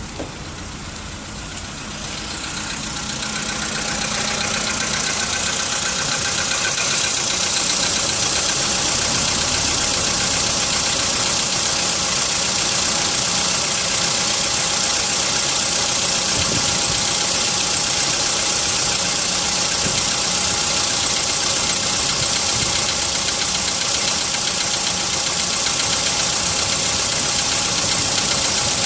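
Volkswagen Polo sedan engine idling cold, with the knock that shows on a cold engine. It grows louder over the first few seconds, then runs steadily.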